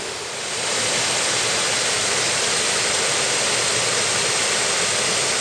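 Mountain stream rushing over rocks in small cascades: a steady rush of water that grows louder about half a second in.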